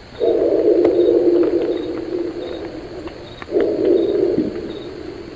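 A bear giving two long, drawn-out calls on a steady low pitch, the first lasting about three seconds and the second about two, with crickets chirping faintly behind.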